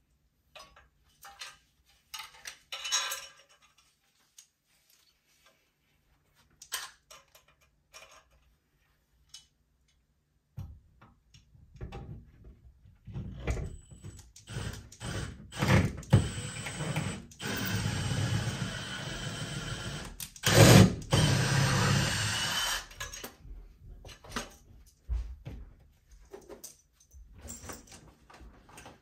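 Scattered clicks and knocks of tools and hardware being handled, then about ten seconds of a power drill running through the wall, with sharper knocks over it, before the handling clicks resume.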